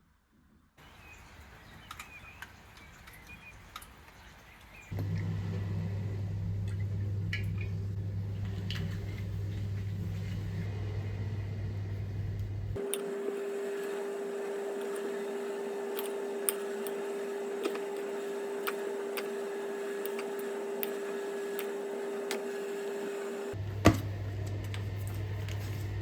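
Steady machine hum with scattered light clicks. It starts as a low hum, changes abruptly to a higher steady hum partway through, and switches back to the low hum with a sharp click near the end.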